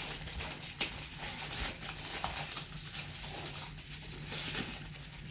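Gift wrapping or packaging paper rustling and crinkling as a present is handled and opened, with scattered small clicks and taps.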